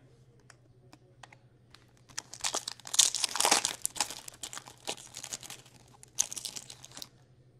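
Foil wrapper of a Skybox Metal Universe hockey card pack being torn open and crinkled by hand, loudest about three seconds in, with a last crinkle near the end. It is preceded by a few faint clicks of cards being handled.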